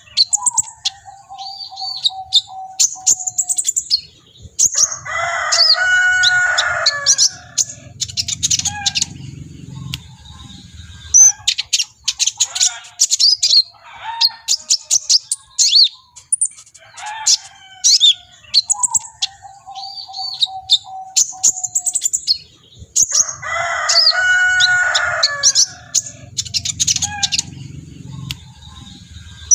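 Sunbird song: rapid, high-pitched chirps and trills. The same sequence repeats about every 17 seconds, with a lower, louder call in it twice.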